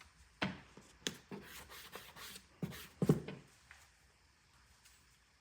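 Tools being handled in a toolbox: a few knocks and scrapes over the first three and a half seconds, the loudest about three seconds in.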